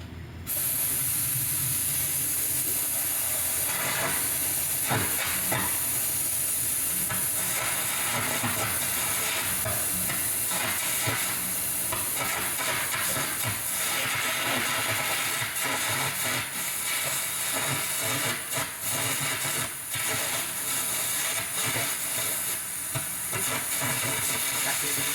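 Metal-cutting torch cutting through steel: a steady loud hiss that starts abruptly about half a second in, with an irregular crackling sizzle of molten metal.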